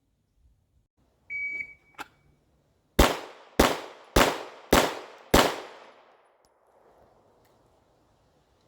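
Shot timer beeps once, then a Glock pistol fires a string of five quick shots, a little over half a second apart, each followed by a short echo.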